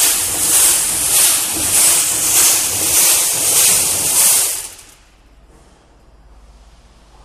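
Stainless steel Mueller paddle mixer with side scrapers churning its test product: a loud rasping swish that swells and fades about every 0.6 seconds as the paddles turn. It stops quickly about four and a half seconds in as the mixer is switched off, leaving a faint low hum.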